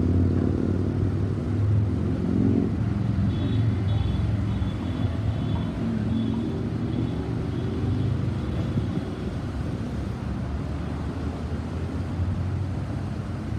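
Busy city-avenue traffic: a steady rumble of cars passing. A faint high-pitched tone repeats in short pulses through the middle.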